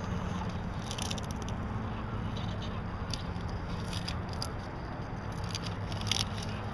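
Radio-controlled scale rock crawler creeping over boulders: its electric motor and geared drivetrain hum low and steady, with scattered clicks and crunches of the tyres and chassis on stone and grit.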